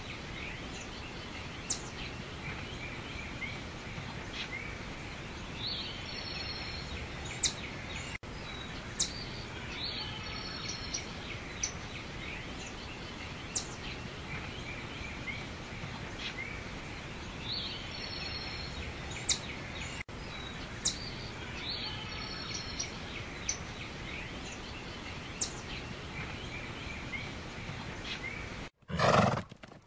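Outdoor ambience of small birds chirping over a steady background hiss, a short loop that repeats about every twelve seconds. About a second before the end it cuts abruptly to a loud horse call.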